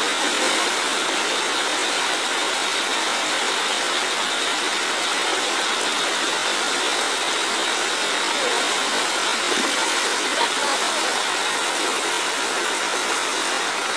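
Steady rushing hiss of fast-flowing flash-flood water pouring across a road.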